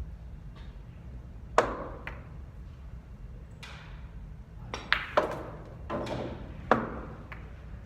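Pool balls clacking on a pool table: a sharp clack about one and a half seconds in, a quick run of three clacks around five seconds, and more single clacks near the end, with softer rattling knocks between.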